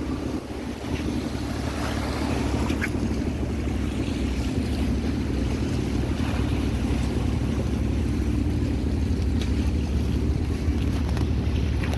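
A small boat's engine running steadily with a low, even drone, and water washing past the hull.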